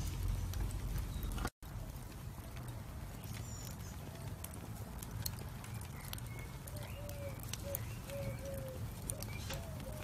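Fire crackling, with irregular sharp pops and snaps over a low steady hiss. The sound cuts out completely for an instant about a second and a half in. Short bird calls chirp in the background, mostly in the second half.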